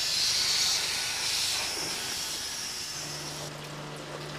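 Steam hissing from a steam locomotive, strongest at first and slowly fading. The hiss stops abruptly about three and a half seconds in, leaving a low steady hum.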